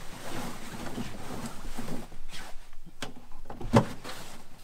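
Heavy fabric rustling as a black canvas bundle is handled, followed by a few knocks and bumps, the loudest a sharp thump near the end.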